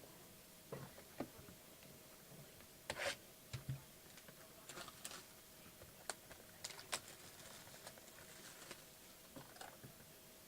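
Quiet, sporadic light clicks and taps at uneven intervals, a few louder ones about three seconds in and near the middle, over a faint steady hum.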